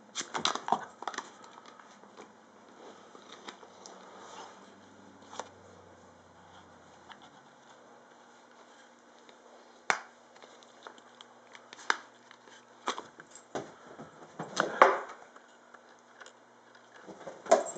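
Scattered taps, knocks and rustles of a dog playing indoor fetch with a plastic wiffle ball, with a cluster at the start, a few sharp single taps midway and a louder burst of rustling knocks near the end.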